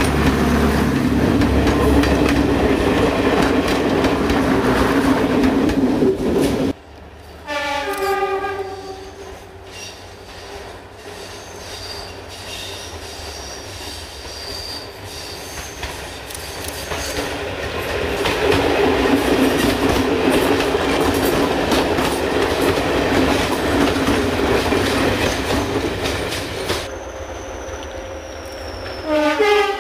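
A first-generation diesel multiple unit runs past close by, its underfloor diesel engines and wheels over the rail joints loud, then cuts off abruptly. A two-tone train horn sounds briefly about 8 s in, and a DMU's engines and wheels build up as it approaches and passes. Near the end a Class 20 diesel locomotive approaches with a high falling whistle and gives a short horn blast.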